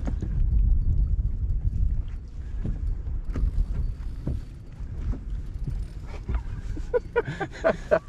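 A steady low rumble, like wind buffeting the microphone on an open boat, with scattered short knocks and clicks.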